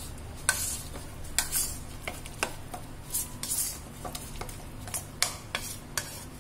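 A steel spoon stirring thick Oreo cream filling in a bowl: irregular clinks of the spoon against the bowl, with short scraping swishes between them, over a steady low hum.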